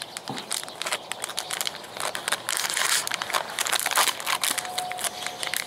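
Plastic cat-treat pouch crinkling and crackling in gloved hands as it is handled, in a dense run of irregular crackles.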